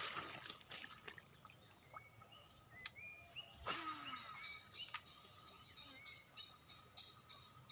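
Insects trilling steadily at a high pitch, with short rising bird chirps scattered through and a few sharp clicks, the loudest a little before four seconds in.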